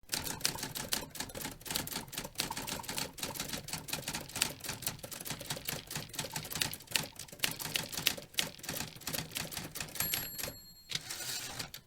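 UNIS typewriter being typed on: an irregular run of sharp key strikes, several a second. Near the end it gives a brief ringing tone followed by a short rasp.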